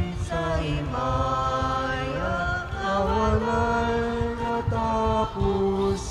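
Sung Gospel acclamation at Mass: a single voice chants a slow melody, holding each note and moving up and down in steps.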